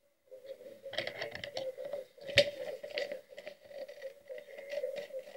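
Small scissors cutting and handling a sheet of paper: crisp snips and paper rustling, with one sharper click about two and a half seconds in.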